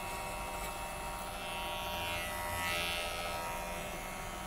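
Electric hair clipper running with a steady buzz while cutting hair over a comb, with a louder hiss of the blades biting through hair twice in the middle.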